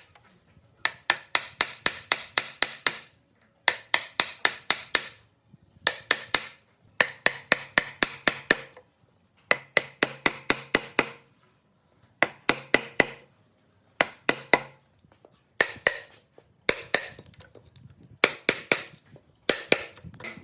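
Hammering on wood: rapid strikes, about seven a second, in short runs of one to two seconds with brief pauses between.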